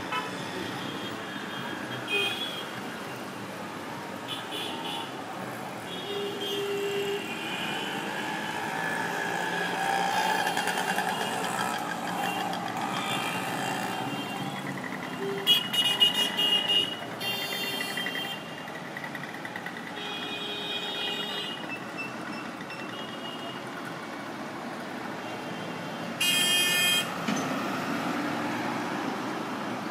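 Busy city street traffic: a steady hum of passing vehicles with horns honking repeatedly, loudest in a cluster of honks about halfway through and a single honk held for about a second near the end.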